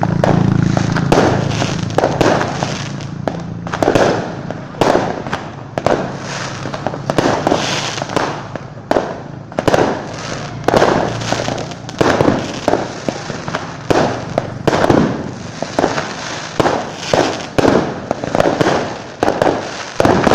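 Fireworks going off one after another: a continuous run of loud bangs, about one or two a second, each trailing off in a short echo.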